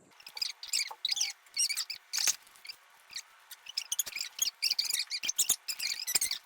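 Slime being squished and worked by hand: a dense, irregular run of sticky clicks, crackles and small squelching pops.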